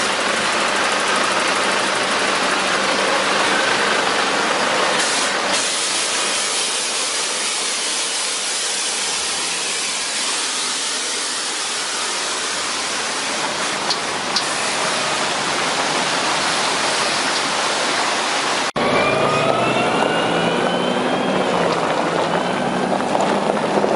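Loaded Volvo logging truck on a rough track: engine running under load with a steady rush of noise. About 19 s in the sound cuts abruptly to another take, where the truck's engine rises in pitch as it pulls away uphill.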